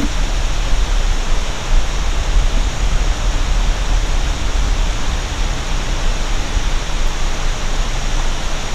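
Steady rushing noise with a strong deep rumble underneath, unchanging throughout.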